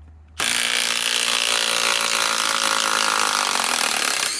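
Cordless impact tool hammering as it backs out a 5-inch lag screw, a loud rapid buzzing rattle starting about half a second in.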